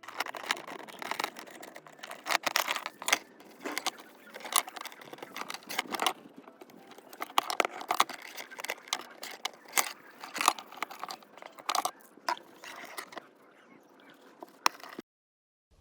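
Small metal parts clinking, rattling and scraping against each other in quick, irregular clicks: the pieces of an antique hanging beam scale being handled. The sound cuts off sharply about a second before the end.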